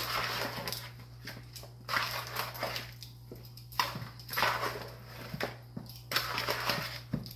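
A fork stirring and tossing raw chicken pieces through seasoning in a bowl: wet squishing and scraping in irregular strokes, several in a row.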